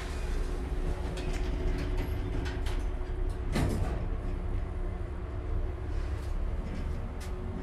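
KONE service elevator car travelling between decks: a steady low rumble and hum, with scattered light clicks and rattles and a brief louder rush about three and a half seconds in.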